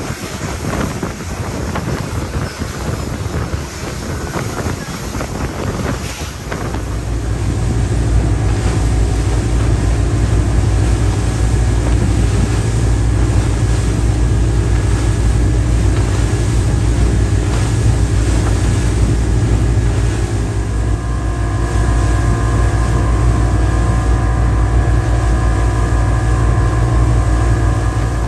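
Outboard-powered motorboat running at speed over choppy water, with wind buffeting the microphone and the rush of spray and wake. About seven seconds in, the engine's steady drone comes up and stays loud.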